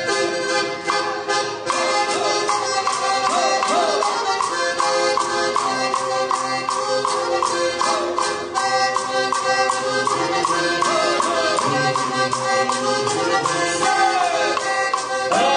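Circassian folk dance music: an accordion playing a lively tune over a fast, steady beat with rattles.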